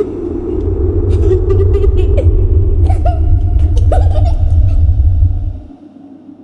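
A loud, deep rumble that stops abruptly about five and a half seconds in, with scattered short clicks and chirps above it.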